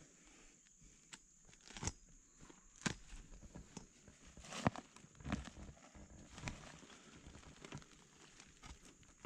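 Faint, irregular crunches, scuffs and knocks of people stepping and digging in damp earth, the loudest a little under five seconds in.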